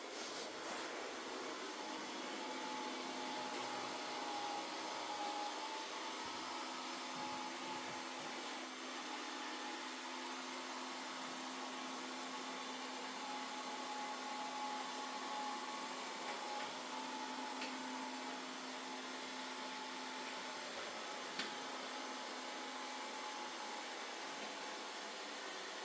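Mova Z60 robot vacuum running steadily through a cleaning run, a constant motor noise with a faint steady whine. There is one sharp click about twenty seconds in.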